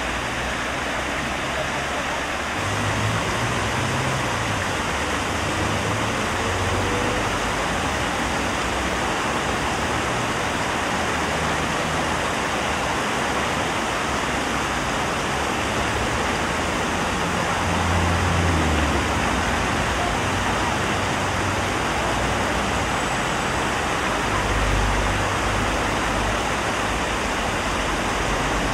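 Water splashing steadily as it cascades in sheets over the tiers of a large fountain into its basin, with a low rumble of road traffic rising and falling now and then.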